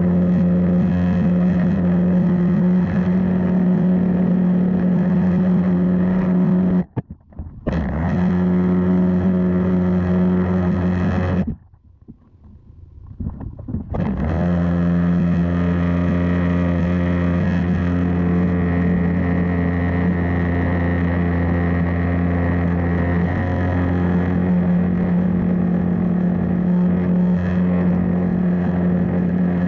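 Pressure-washer spray through a turbo (rotating) nozzle hitting terracotta roof tiles: a loud, steady buzzing hum over hissing water. The spray stops for under a second about seven seconds in, and again for about two seconds near halfway, then comes back on.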